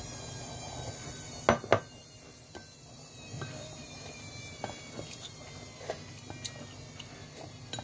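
Eating noodles from a ceramic bowl with wooden chopsticks: two sharp knocks of crockery about a second and a half in, then scattered faint clicks, over a faint steady hum.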